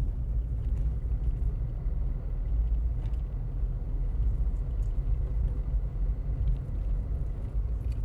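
Car cabin noise while driving at road speed: a steady low rumble of engine and tyres on a concrete highway, heard from inside the car.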